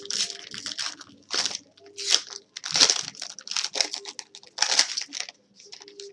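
Foil wrapper of a Topps baseball card pack being torn open and crinkled in the hands, in irregular bursts of crinkling, loudest about three and five seconds in.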